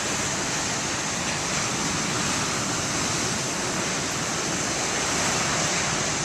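Big ocean waves breaking and surf washing against the shore, a steady rushing noise with no single crash standing out.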